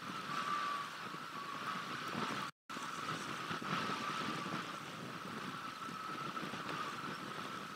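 Wind buffeting an outdoor webcam microphone: a steady rushing noise with a constant hum underneath. The sound cuts out for a moment about two and a half seconds in.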